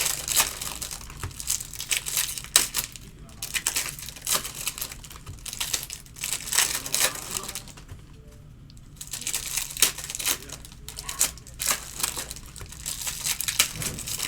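Plastic and foil trading-card pack wrappers being crinkled and torn open by hand: dense, irregular crackling with a brief lull about two-thirds of the way through.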